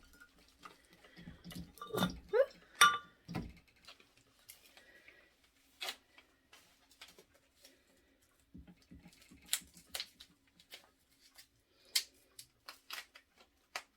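Teapot being handled on a tabletop: scattered clinks, knocks and small rattles, the loudest about two to three seconds in, one of them a short ringing clink like a lid or pot tapping.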